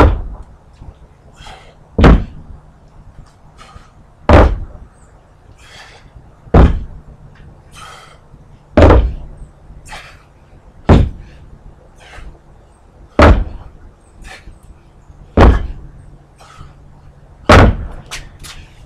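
Dumbbells knocking down onto a wooden deck during push-ups with rows: nine loud thuds, one about every two seconds, as each dumbbell is set back down after being lifted.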